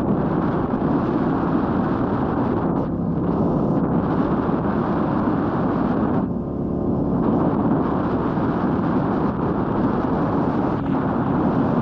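Royal Enfield Meteor 350's single-cylinder engine running steadily on the move, with wind rushing over the microphone. The sound eases briefly about six seconds in.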